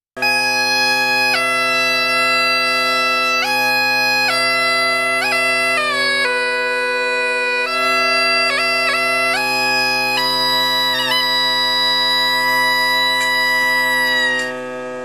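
Highland bagpipes playing a tune over their steady drones, with quick flicks of ornament notes between the melody notes. The sound starts abruptly. The melody stops near the end, leaving the drones sounding more quietly.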